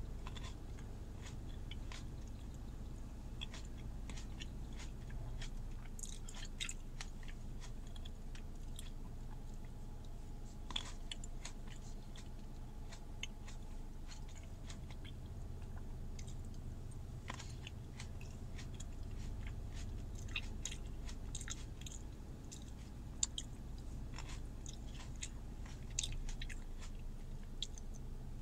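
A person chewing and biting into green grapes close to the microphone: many short, irregular wet clicks from the mouth, over a steady low hum inside a car.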